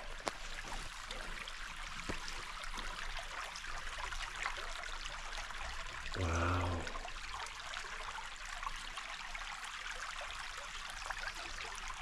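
Shallow forest creek running and trickling over its sandy, rocky bed: a steady watery hiss. About six seconds in, a person makes one short low vocal sound.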